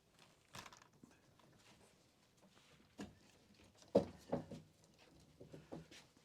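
Scattered knocks and scuffs of an animal moving about, loudest in a quick cluster of knocks about four seconds in.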